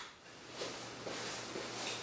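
Footsteps on a hard floor, soft knocks about two a second, over a steady low hum that starts about half a second in.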